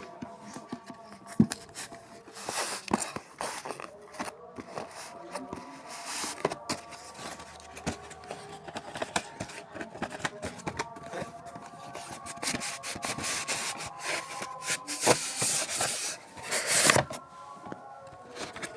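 Gift packaging being handled and opened by hand: irregular rubbing, scraping and rustling with scattered clicks. There is a louder, denser stretch near the end.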